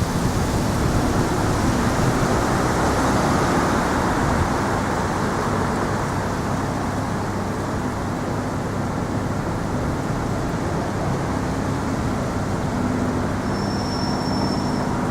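Steady city street traffic noise, an unbroken rumble of passing vehicles, with a thin high whine near the end.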